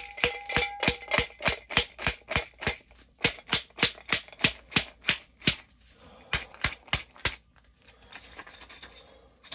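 Mason jar of mycelium-colonised grain spawn shaken hard by hand, the grain clacking inside the glass jar at about three or four strikes a second, with a short pause about six seconds in before a few more shakes and a faint rustle near the end. This is a shake and break, done to break up the mycelium through the grain.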